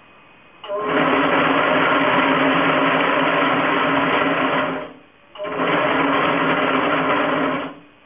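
DIY maypole braiding machine running, its bobbin carriers circling to braid a sleeve over a wiring harness. It gives a loud, steady mechanical whir in two runs, about four seconds and then about two seconds, each starting and stopping sharply, with a half-second stop between.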